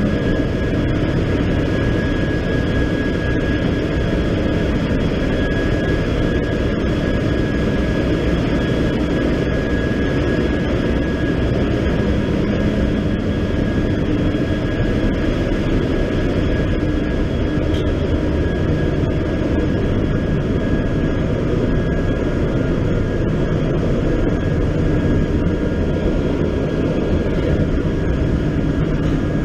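Steady, loud drone of a cargo ship's engine-room machinery running, with a thin high whine held over it.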